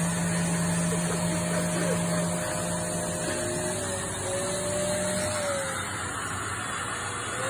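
Canister vacuum cleaner running steadily as its floor nozzle is pushed over carpet, a constant motor hum and airy hiss whose pitch wavers slightly partway through.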